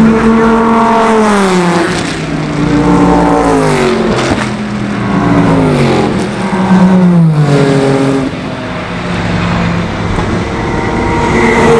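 Several sports-racing cars pass one after another at full speed, each engine note dropping in pitch as it goes by. Another car is coming up near the end.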